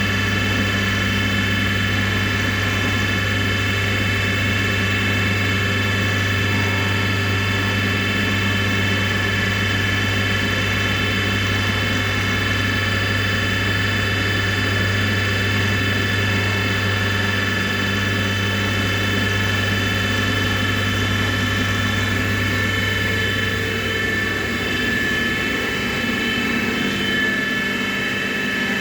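CNC milling machine running a finishing pass on an injection mold: a steady, loud mechanical whine of many overlapping tones over a low hum. It drops slightly in level and the low hum fades in the last few seconds.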